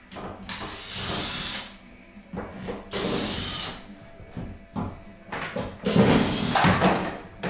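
Electric screwdriver motor whirring in short bursts of about a second each, then a longer, louder run with knocks in the last couple of seconds.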